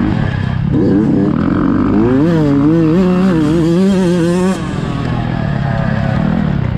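Fantic motocross bike's engine under hard riding, its pitch rising and falling quickly with the throttle, with a brief drop in level about four and a half seconds in as the throttle is backed off.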